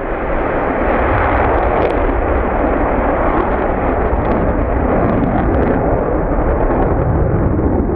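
Twin-engine fighter jet's engines roaring loudly as it pulls up into a steep climb: a steady, rushing jet roar with a deep rumble that grows stronger near the end.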